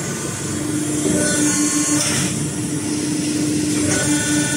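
CNC hydraulic press brake running: its hydraulic pump and motor give a steady hum with a constant low tone over a mechanical rumble. A higher whine comes in about a second in and again near the end.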